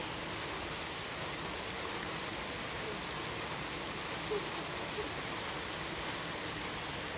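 Steady, even background hiss with no clear source, with two faint short sounds about four and five seconds in.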